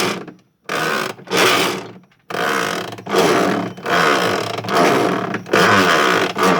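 Electrolux top-load washing machine's drive mechanism worked back and forth by hand with the belt off, as it moves during the wash: a run of short mechanical whirring, rattling strokes, about eight in all, roughly one every three-quarters of a second.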